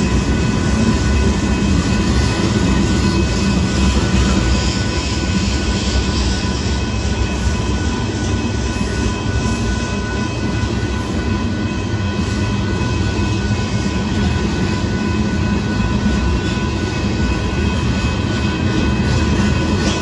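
Covered hopper cars of a freight train rolling past a grade crossing: a steady, loud rumble of wheels on rail, with a few steady high tones over it.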